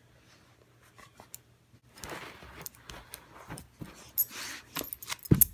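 A dog pawing and licking at a small plastic 1x1 cube: scratchy rustling and sharp clicks, with one loud knock near the end.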